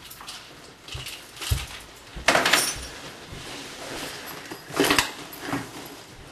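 Footsteps across a kitchen floor, mixed with knocks and short rustles from a shoulder bag being taken off and handled at the table. The loudest rustles come about two and a half and five seconds in.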